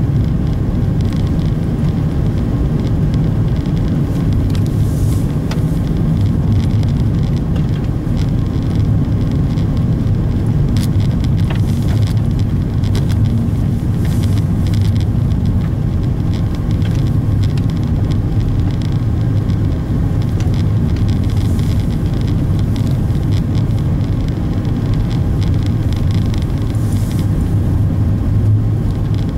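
A car driving at a steady speed: a continuous low rumble of engine and road noise that holds even throughout.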